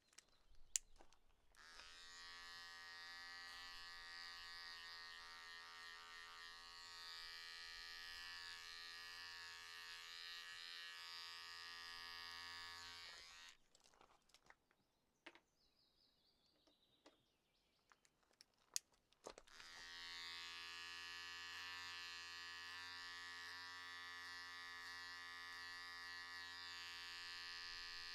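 Electric hair clippers buzzing steadily while cutting hair. They switch off about 13 seconds in, with a few clicks during the pause, and start buzzing again about six seconds later.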